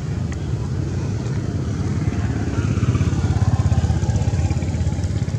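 A small engine running steadily: a low, rapidly pulsing drone that grows a little louder about midway.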